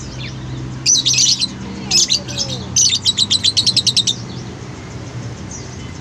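Caged lovebirds chirping shrilly in short clusters, then a rapid chatter of about ten sharp chirps a second around the middle that stops near four seconds in.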